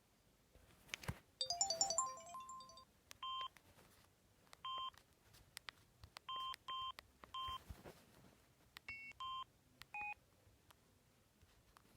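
Samsung SGH-C260 mobile phone's electronic sounds: a quick run of melody notes near the start, then about eight short beeps at uneven gaps with faint clicks between, typical of keypad tones as its menu is scrolled.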